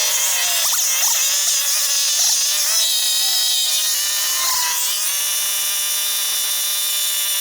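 Chainsaw running at high revs while cutting into a cedar log, its pitch dipping and recovering under load, then holding steady from about five seconds in.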